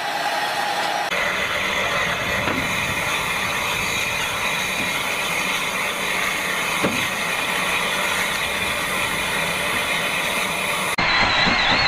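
Steam hissing from steam locomotives. For about the first second it comes from LNER A4 Pacific 60009, then a steady hiss from a small tank engine's open cylinder drain cocks as it moves slowly.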